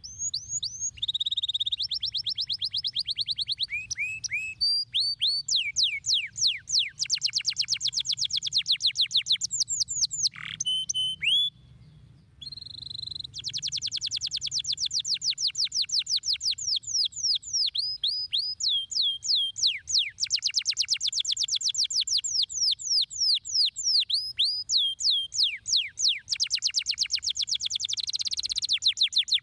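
Domestic canary singing a long song of fast trills, each trill a rapid run of repeated falling notes, with one brief break about eleven seconds in.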